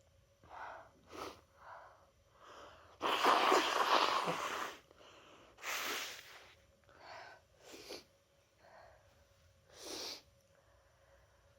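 A person with a head cold sneezing, set off by chhinkni sneezing snuff. There are short, faint breaths first, then one long, loud sneeze about three seconds in, followed by a couple of weaker bursts.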